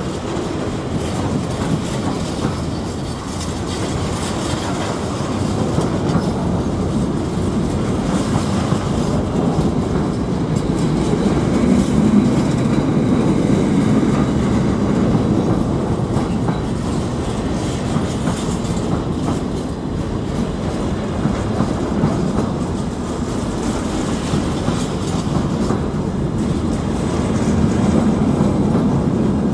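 A train running along the track, its wheels clicking over the rail joints in a steady continuous run. It swells a little about twelve seconds in and again near the end.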